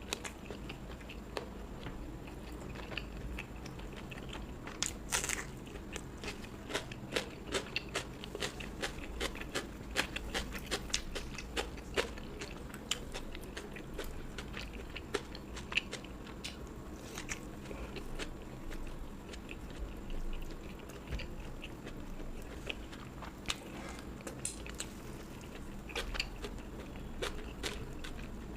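A person biting and chewing crunchy food, with many short crunches, thickest in the middle stretch.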